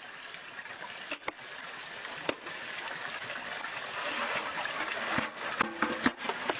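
Water running and trickling steadily, with scattered knocks as a capuchin monkey scrubs a metal bowl with a brush. Near the end comes a quick cluster of clanks, the metal bowl ringing briefly.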